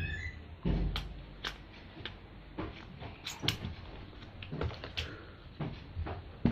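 Handling noise of a mobile phone being fitted into a plastic phone clip mount on a flexible tripod: scattered sharp plastic clicks and knocks, with a heavier thump about a second in.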